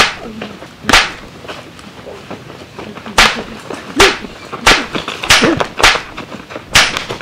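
Staged fistfight hits: about eight sharp punch and slap cracks, unevenly spaced and coming faster in the second half.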